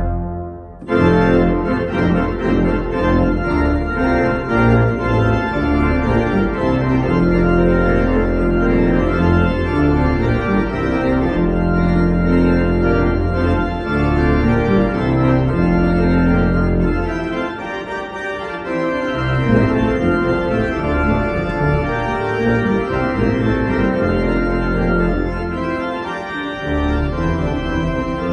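Organ played with full sustained chords on the manuals over a deep pedal bass. There is a brief break just after the start, and the bass drops out briefly about two-thirds of the way through and again near the end.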